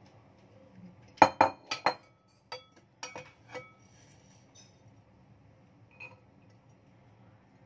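Kitchen utensils clinking and knocking at a chopping board: four sharp clinks close together about a second in, then a few more around three seconds, some with a brief metallic ring, and one light tap near six seconds.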